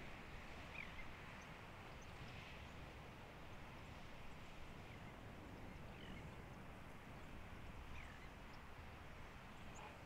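Faint outdoor natural ambience: a steady soft hiss with a few short, distant bird calls, about three of them.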